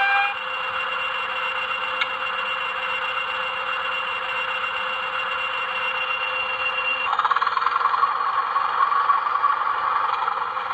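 Digitrax SFX sound decoder in a Lima OO-gauge Class 20 model playing a diesel engine sound through its small speaker, thin and tinny, with a steady hum. About seven seconds in the sound turns louder and rougher.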